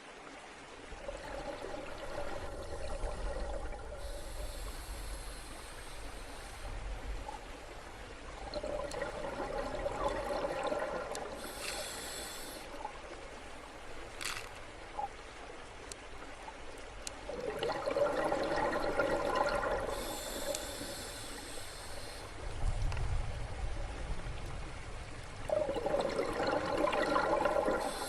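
Underwater bubbling that swells and fades about every eight seconds, with a short hiss between the swells, over a low rumble.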